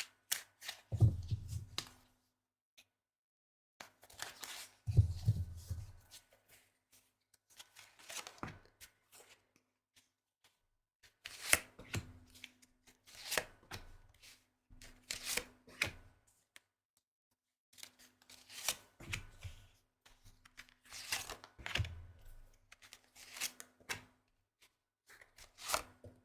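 A deck of tarot cards being shuffled by hand in short, repeated bursts of crisp riffling and slapping, with a couple of dull thumps about a second in and near five seconds.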